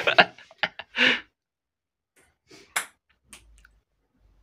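Ping-pong ball bouncing on a hard surface after a missed throw: a quick run of light clicks in the first second, then a few scattered clicks. A brief voice sound about a second in.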